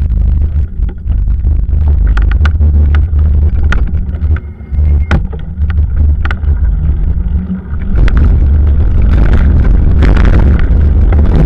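Wind buffeting the microphone of a bicycle-mounted camera as a low, heavy rumble, with sharp clicks and knocks of the mount rattling over bumps in the pavement. It eases between about four and eight seconds in, then grows louder and fuller.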